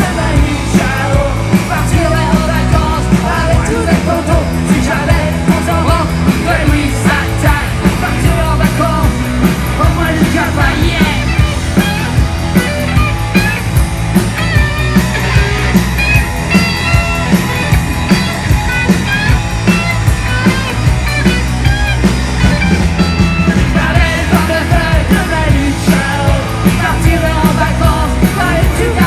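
Punk rock band playing live and loud: distorted electric guitars, bass and drums driving a steady fast beat, with a male lead vocal sung over the top.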